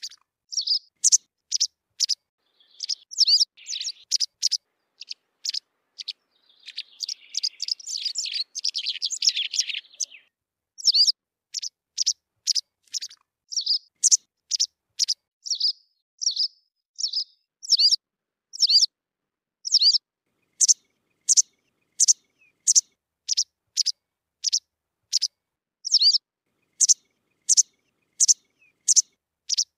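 White wagtail calling: a steady series of short, sharp, high chirps at about two a second, with a busier twittering passage from about 3 to 10 seconds in.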